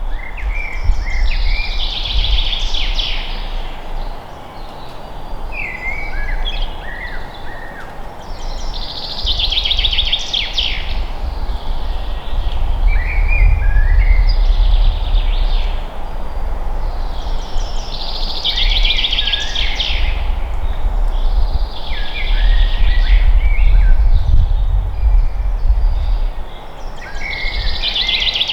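Forest ambience: a songbird sings a short trilled phrase six times, a few seconds apart, over a steady low wind rumble that swells and fades.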